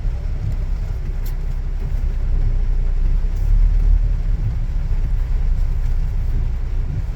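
Steady low rumble of a car being driven, heard from inside the cabin, with a faint tick about a second in.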